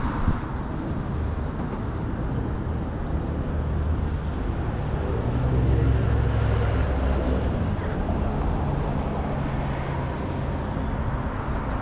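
Road traffic going by: a motor vehicle's engine hums over a steady low rumble, growing louder and loudest about halfway through, then easing off.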